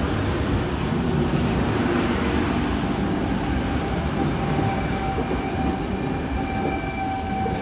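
Sydney Trains C-set electric train with chopper traction control pulling away from the platform: a steady rumble of wheels and running gear with a thin motor whine held over it.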